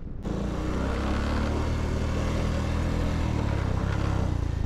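Motorcycle engine running steadily while riding. It cuts in abruptly just after the start.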